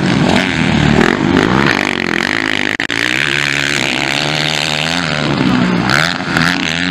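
Several MX1-class motocross bikes racing, their engines revving up and down as the riders accelerate, shift and jump. The sound breaks off for an instant about three seconds in.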